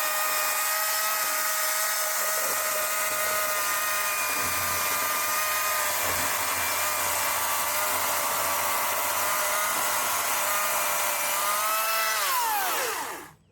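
80-volt Greenworks battery chainsaw running under load through a thick log: a steady electric motor and chain whine over the hiss of the chain cutting wood. Near the end the pitch rises briefly, then winds down and stops.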